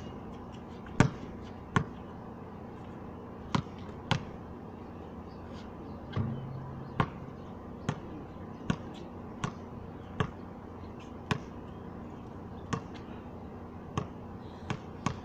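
A basketball bouncing on a concrete court, about fifteen sharp single bounces at an uneven pace, roughly one a second.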